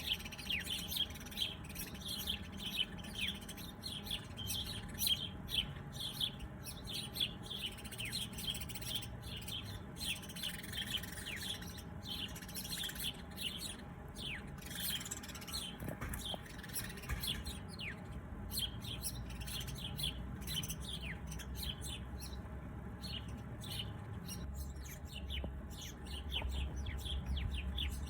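Many small birds chirping and twittering without pause, a dense overlapping chorus of short, high, downward-sliding chirps. A low rumble rises underneath near the end.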